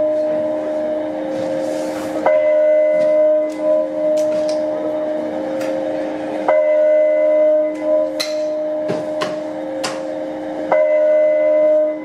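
Church bell tolling, played through a high-output speaker built into a 1/64 scale model church: three strokes about four seconds apart, each ringing on into the next, with light clicks in between.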